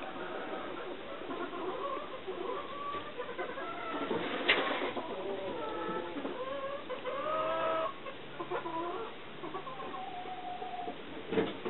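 Domestic turkeys calling: a run of short clucking calls, several overlapping, many sliding up or down in pitch. A sharp click comes about four and a half seconds in and again near the end.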